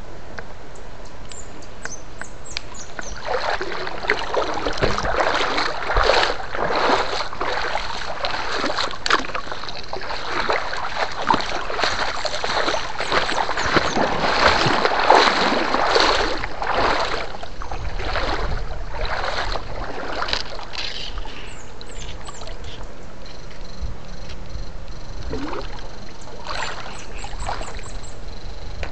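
Shallow water being splashed and churned, in irregular splashes that come thick through the middle stretch and thin out near the end.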